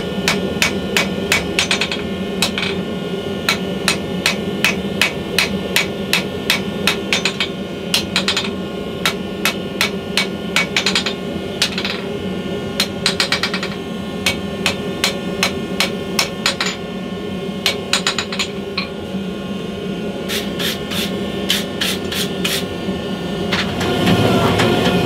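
Hand hammer striking a red-hot leaf-spring steel blade on an anvil: runs of ringing blows, about three a second, with short pauses between runs, over a steady hum.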